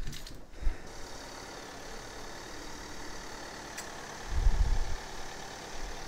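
A vehicle engine idling steadily, with a brief low rumble about four seconds in.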